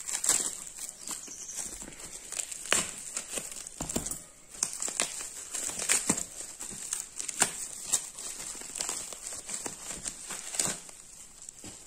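Plastic packaging crinkling and crackling as hands open a black plastic mailer bag and handle bubble wrap, in irregular rustles with sharp crackles.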